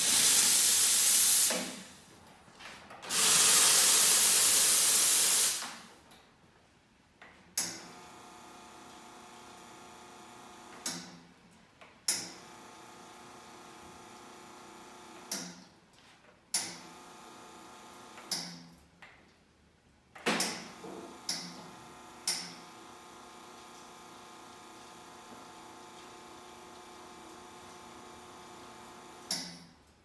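La Marzocco GB5 espresso machine: the steam wand is opened twice, giving two loud bursts of hissing steam lasting one to two seconds each. About seven seconds in, the machine's pump motor starts a steady hum, broken by sharp clicks as the group buttons are pressed and the groups switch on and off.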